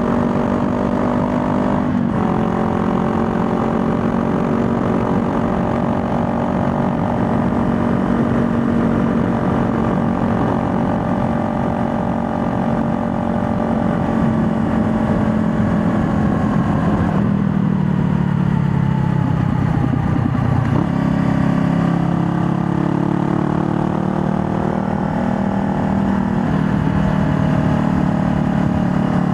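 2020 Honda Rebel 500's 471 cc parallel-twin engine pulling under way. Its pitch drops suddenly about two seconds in, sinks steadily for a few seconds past the middle, then jumps up again, as with gear changes and throttle on and off.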